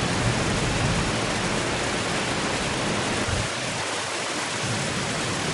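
Steady rain, a dense even hiss with a low rumble underneath.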